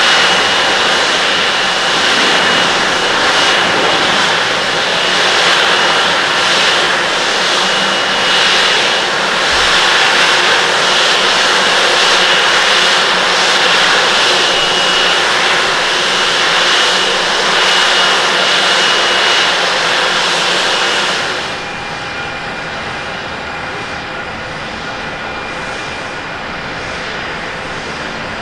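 Jet engines of a Japan Airlines Boeing 777-200ER taxiing on a wet apron: a loud, steady rush with a thin high whine that comes and goes. About three-quarters of the way through, the sound cuts to the quieter, steadier engine noise of a China Eastern Airbus A330-300 with Rolls-Royce Trent 700 engines on the runway.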